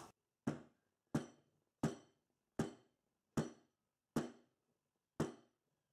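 Glass jar of foaming sugar scrub knocked down firmly onto a tea towel on a table: seven thumps, about one every three-quarters of a second, to level the scrub and knock out air pockets.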